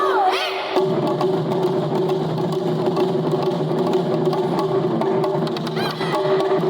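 Taiko drum music: rhythmic wooden clicks and drumming over a steady held tone, with sliding high notes near the start and again about six seconds in.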